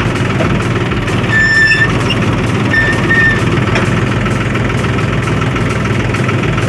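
Mahindra tractor's diesel engine running steadily as the tractor drives, with two short high tones about a second and a half and three seconds in.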